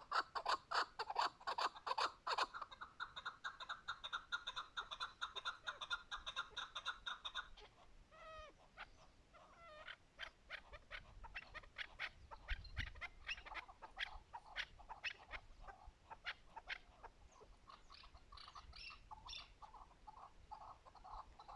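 Chukar partridge calling: a fast, even run of clucking notes that breaks off about seven seconds in, followed by a few gliding notes and scattered short clucks, then the fast run starts again near the end.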